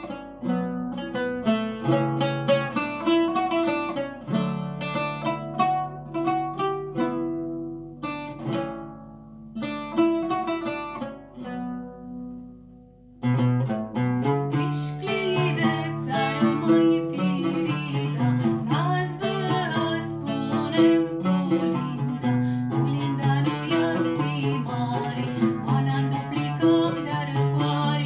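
Oud plucked solo in a free introduction that slows and dies away about halfway through. The oud then comes back in and a woman's voice starts singing an Aromanian carol over it.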